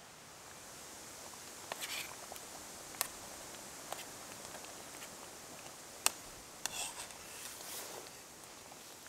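A spoon stirring in a metal cooking pot on a small camp stove: a few sharp metal clinks with short scraping rattles, the loudest clink about six seconds in. A steady hiss of wind and rain lies underneath.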